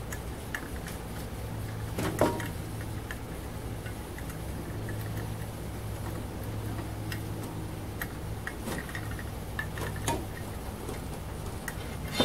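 A hand-chain hoist's chain clicking and rattling in scattered ticks as it is pulled by hand, over the steady low hum of a propane-fired foundry furnace burner.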